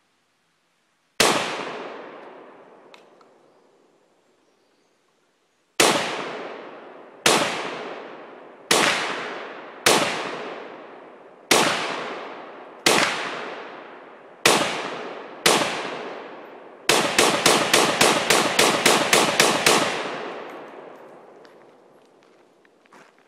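SKS semi-automatic rifle (7.62×39 mm) firing: one shot about a second in, then after a pause eight shots spaced a second or more apart, then a fast string of about a dozen shots over three seconds. Each report trails off in a long echo.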